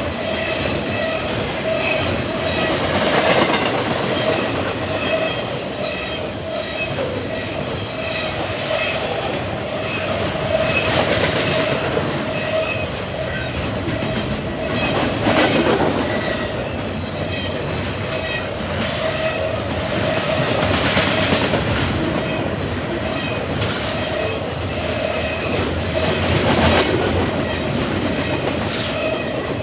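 Double-stack intermodal freight cars rolling past at speed, wheels clacking over the rail joints, with a steady ringing tone from the wheels and rails. The sound swells every five or six seconds as cars go by.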